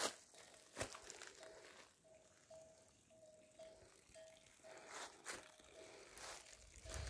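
Faint crunches and clicks of movement on dry, stony ground, over a faint short note that repeats about twice a second.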